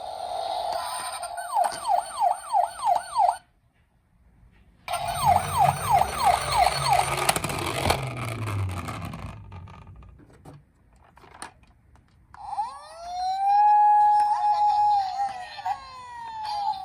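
Electronic sirens of toy emergency-vehicle minicars, sounding in turn. A fast, repeating yelp cuts off after about three seconds. After a short pause, another yelp follows with a low rumble under it. Near the end comes a slower siren that rises and falls.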